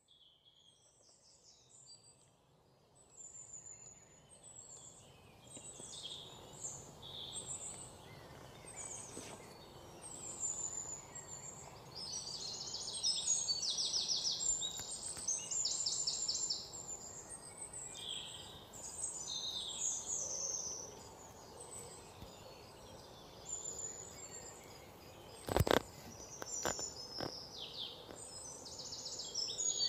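Small birds chirping and twittering throughout, often in quick runs of repeated chirps. Near the end comes one sharp knock, the loudest sound, followed by a few fainter clicks.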